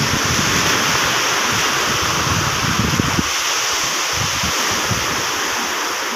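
Sea surf washing on the shore as a steady hiss, with wind buffeting the microphone in low gusty rumbles that ease after about three seconds.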